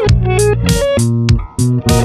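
Background music: an instrumental passage of a pop song with guitar and bass over a steady beat, no singing.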